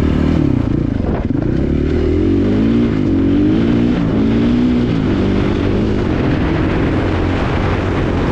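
KTM 500 dual-sport motorcycle's single-cylinder four-stroke engine running under way, its pitch rising and falling with the throttle.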